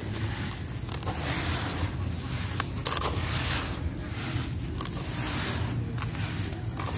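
Dry, gritty dirt with small pebbles poured from cupped hands back into a tub of the same, each pour a rush of falling grains landing on the pile, repeating about once a second.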